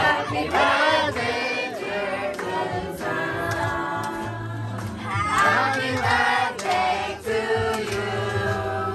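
Music: a song with several voices singing over sustained low bass notes.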